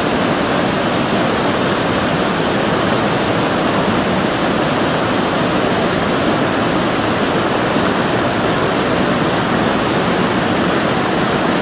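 Waterfall pouring over basalt rock: a steady, even rush of falling and swirling water.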